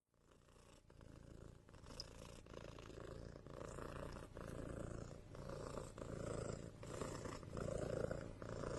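A sleeping cat snoring, a low sound on each breath in a steady rhythm, growing louder over the first few seconds.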